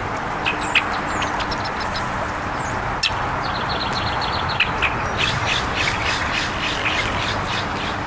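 California quail pecking seed off a wooden picnic table: irregular small taps, with short bird calls and a quick high trill from a songbird about three and a half seconds in, over a steady background hiss.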